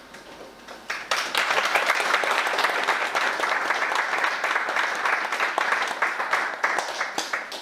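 Audience applauding: a dense patter of many hands clapping starts about a second in and stops abruptly near the end.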